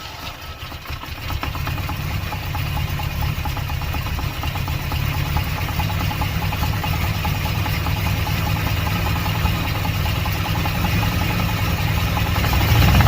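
Car engine idling with a fast, rhythmic ticking, a tick being traced to either the torque converter or the flexplate.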